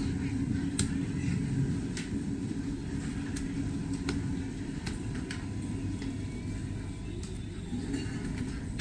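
Low rumble of a motor vehicle's engine running close by, with a steady low hum that is strongest for the first few seconds, and scattered sharp knocks about once a second.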